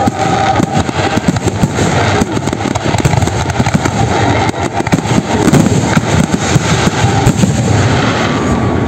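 Fireworks finale: many aerial shells bursting in a dense barrage, the bangs and crackle running together into a continuous rumble, easing slightly near the end.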